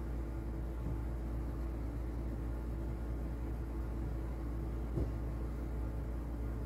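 Steady low rumble of background noise, with one faint click about five seconds in.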